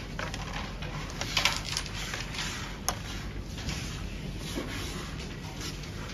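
Wooden carrom men clicking and clacking against each other and the board as they are set out and arranged in the centre for a new board, with a cluster of louder clacks about a second and a half in and one sharp click near the three-second mark.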